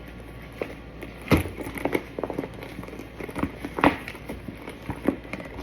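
Items being packed into a diaper bag: crinkling and rustling of packaging with scattered light knocks, two of them sharper, about a second and a half and four seconds in.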